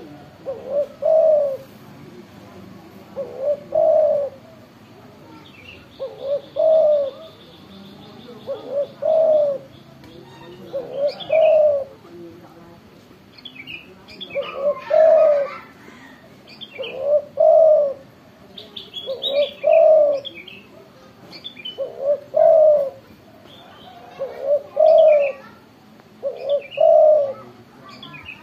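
Spotted dove (tekukur) singing its loud cooing song, a short phrase of a few coos repeated about every two and a half seconds. Small birds chirp faintly and higher-pitched in the background.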